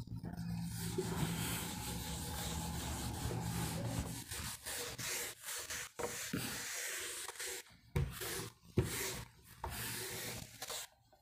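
Scratchy rubbing and scraping close to the microphone, steady with a low hum for about four seconds, then in short broken strokes.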